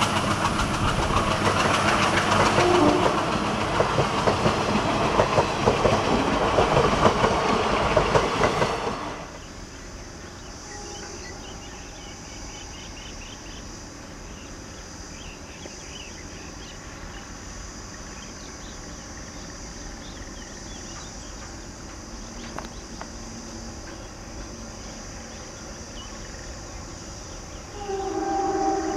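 A passenger train's coaches rushing past at speed, wheels clattering over the rail joints. About nine seconds in the sound drops to a faint steady background. Near the end an approaching diesel locomotive sounds its horn, a loud chord of several tones.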